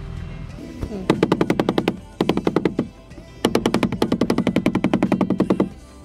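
Background music with a fast, pulsing staccato beat, about ten pulses a second, played in three short runs with gaps between them.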